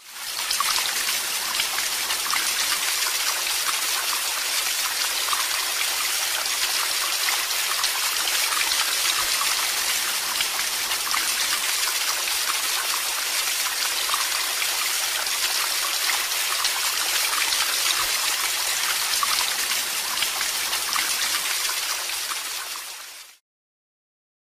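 Small waterfall rushing steadily, fading out about 23 seconds in.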